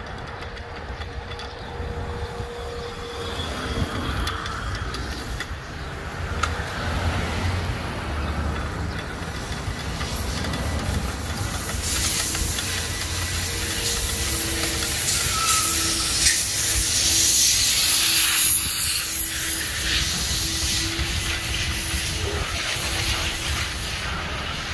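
Wind rumbling on the microphone of a moving bicycle, with road and traffic noise; a loud hiss swells about halfway through and eases off near the end.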